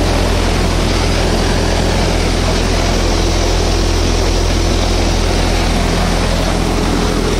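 Tractor-driven thresher running steadily at working speed while threshing mung bean plants, the Swaraj 744 XT's three-cylinder diesel engine pulling it through the PTO under load. Loud, unchanging mechanical drone with a deep hum beneath the rattle and rush of the threshing drum and blower.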